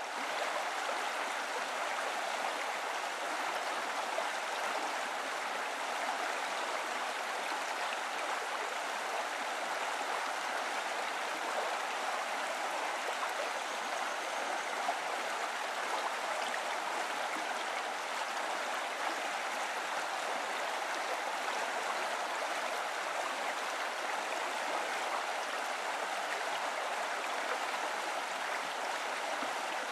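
Steady rushing of flowing water, fading in from silence at the start and holding even throughout.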